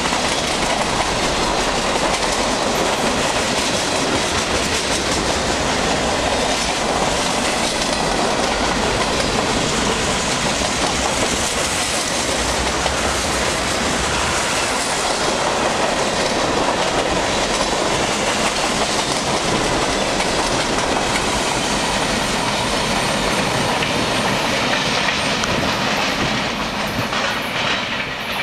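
Freight cars of a long autorack and mixed freight train rolling past at track side, a steady rumble with the clickety-clack of wheels over the rails. The sound eases off in the last couple of seconds.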